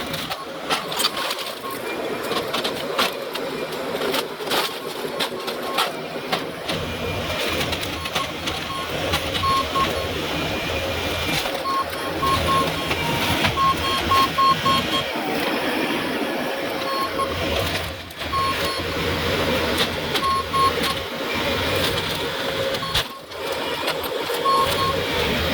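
Heavy equipment demolishing a mobile home: continuous mechanical clatter with frequent sharp cracks and knocks of breaking debris, and short beeps repeated in small groups now and then.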